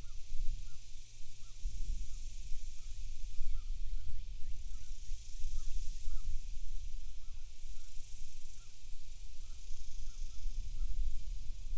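Outdoor pond-bank ambience: wind buffeting the microphone with an uneven low rumble, over a steady high-pitched hiss and many faint short chirps scattered throughout.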